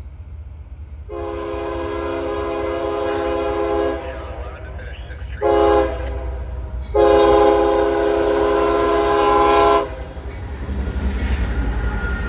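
CSX freight diesel locomotive's multi-chime air horn sounding for a grade crossing: a long blast, a short one, then another long blast. Under it runs the low rumble of the approaching locomotives, which grows louder near the end as the lead units reach the crossing.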